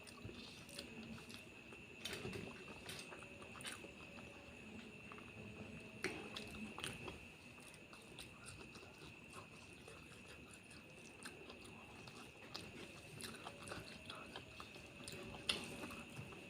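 A person chewing and eating curry with rice close to the microphone: soft, wet mouth sounds with many small sharp clicks and smacks, a few louder ones scattered through.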